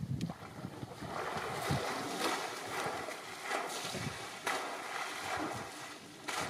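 African elephant swishing grasses and lilies through shallow river water with its trunk: steady splashing and sloshing of water, with a few low thuds.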